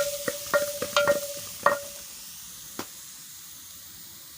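A spoon knocking and scraping against a metal cooking pot while cooked greens are dished out, the pot ringing after each strike. A quick run of knocks in the first two seconds, one more a little before three seconds in, then only a faint hiss.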